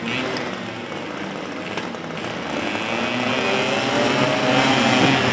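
A grid of two-stroke Vespa racing scooters revving together and pulling away from a standing start. The engines climb in pitch and get louder over the second half.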